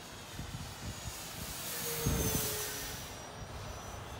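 Electric brushless motor and propeller of an E-flite Air Tractor 1.5m RC plane whining in flight, growing loudest about two seconds in as it passes, its pitch dropping slightly. Gusts of wind buffet the microphone.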